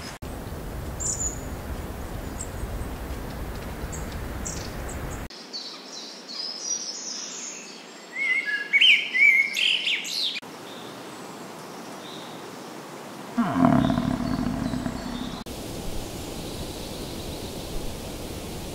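Wild birds chirping over a steady background hiss of outdoor ambience, which changes abruptly several times. The loudest part is a run of sharp high chirps about 8 to 10 seconds in. A lower call that drops in pitch at its start follows about 13 seconds in.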